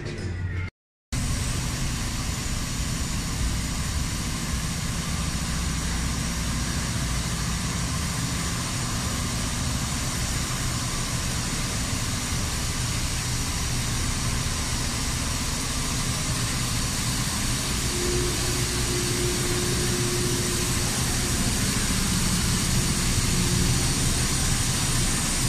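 Steady machinery noise in a tequila distillery's still house, an even mechanical rush of pumps, fans and ventilation around the pot stills. It starts after a brief dropout about a second in.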